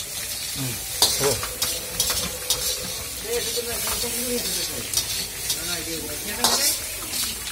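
Chicken pieces deep-frying in hot oil in a kadai, sizzling steadily. A wire-mesh skimmer stirs and lifts them, scraping and clinking against the pan a few times.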